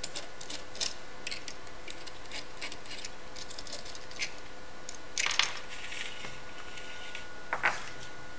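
Small metallic clicks and clinks of brass screws and wire being handled at a test fixture as a wire loop is unscrewed and taken off. There are scattered light ticks, a quick cluster of clinks about five seconds in, and another near the end.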